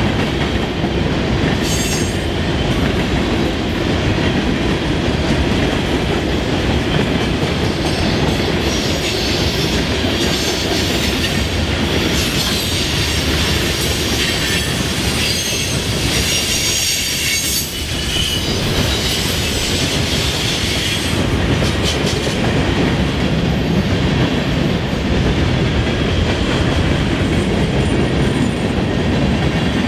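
Freight train cars rolling over a railroad diamond crossing: a steady rumble with the clatter of wheels striking the crossing, and wheel squeal at times.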